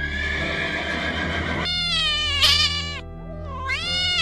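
Domestic cat meowing: two long meows, the first about a second and a half in and the second near the end, over background music.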